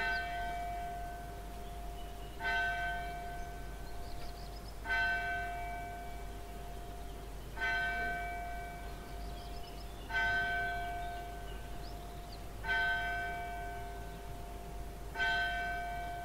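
A single bell tolling slowly, one strike about every two and a half seconds, seven strikes in all, each ringing on and fading before the next. Faint bird chirps sound between the strikes.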